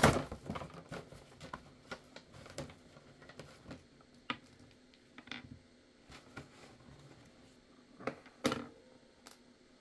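Clear plastic blister packaging being handled and emptied: scattered light clicks and crinkles, with a louder crackle right at the start and another about eight seconds in.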